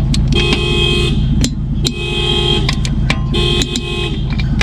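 Car alarm sounding the horn in repeated blasts, about one every second and a half, over the steady low rumble of an idling engine.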